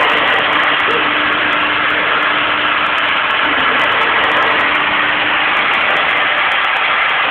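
Spindle motor of a cable-driven CNC milling machine running steadily: a loud, even rushing noise with a faint steady hum underneath.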